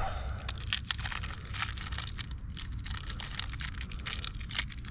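Irregular light clicks and crinkling handling noises, over a steady low rumble.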